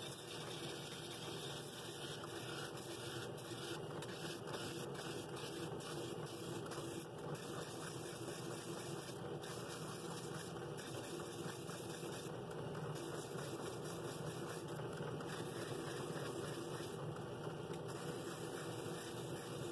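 Drill press running with a sandpaper sanding drum in its chuck, the abrasive sleeve rubbing steadily against the inside wall of a wooden bowl.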